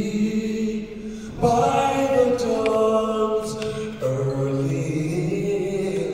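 Slow vocal music: long held sung notes, moving to a new chord every second or two, growing louder about a second and a half in.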